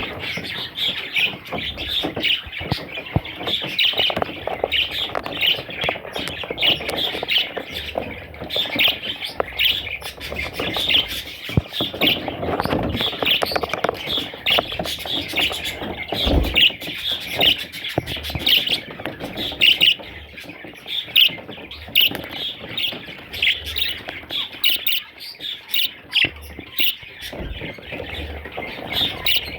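Budgerigars chattering, a continuous stream of quick high chirps and squawks.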